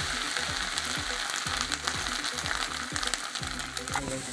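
Grated coconut, shallots and garlic sizzling steadily in hot coconut oil in an aluminium kadai, with a spatula stirring and scraping against the pan: the start of roasting the coconut for the masala.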